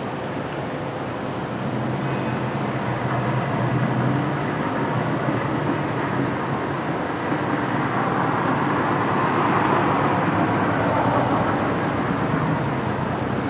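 Motor vehicle engine noise with traffic rumble, growing louder and peaking about two-thirds of the way through as if something passes close by.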